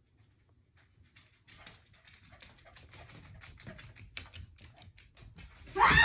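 A small dog's claws clicking rapidly on a hardwood floor as it runs, growing louder as it comes closer. Just before the end a loud, pitched vocal sound breaks in.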